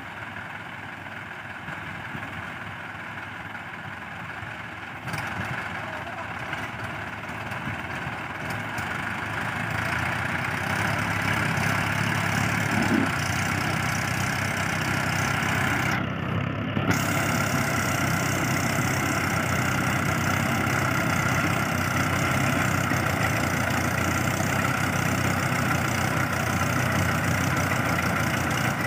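Diesel tractor engines running steadily, growing louder about a third of the way in as they are worked harder.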